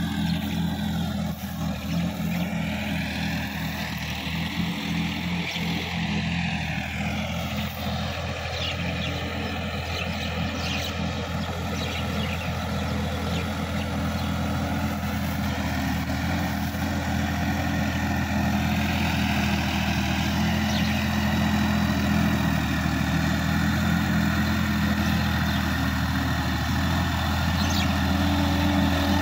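Sonalika DI-50 RX diesel tractor engine running steadily under load while it tills wet, muddy ground. It grows slowly louder as the tractor comes closer.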